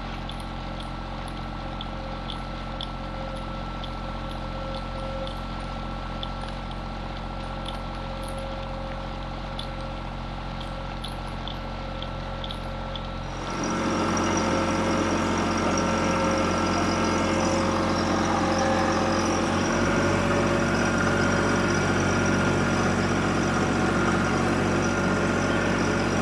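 Compact diesel tractor engine running steadily while pulling a small row planter through tilled soil, with faint regular ticking in the first half. About halfway through it becomes louder and noisier.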